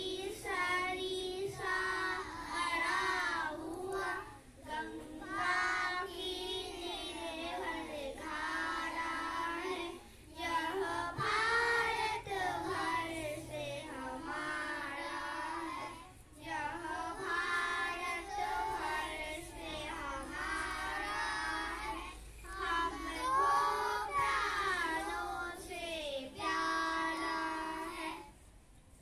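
Young children singing a song together in phrases with short pauses between them; the singing stops near the end.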